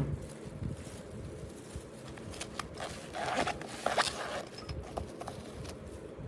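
Scattered light knocks and clicks of a compact wood router and its parts being handled, with a brief rustle about three seconds in.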